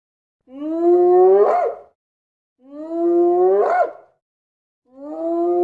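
Spotted hyena whooping: three alike calls about two seconds apart, each rising slowly in pitch and ending in a quick upward sweep.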